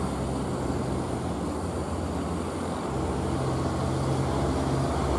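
Diesel engine of a loaded container truck pulling slowly up a steep grade: a steady low drone that grows gradually louder as the truck approaches.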